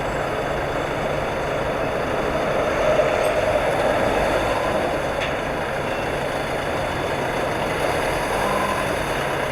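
Steady running of an engine or machine, with a constant low hum under even noise and no distinct strokes or events.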